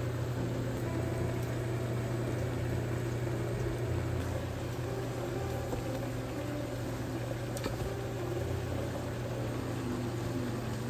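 Pot of napa cabbage and vegetables simmering on a cooktop over a steady low hum, with chopsticks stirring the contents and one sharp tap against the pot past the middle.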